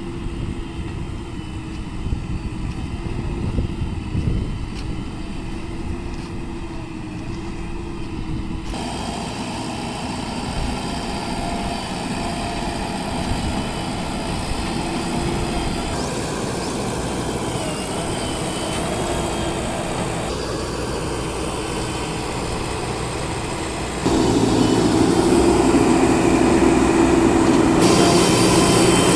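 Heavy vehicle engines running steadily on a dirt road. The sound shifts abruptly several times and is loudest in the last few seconds.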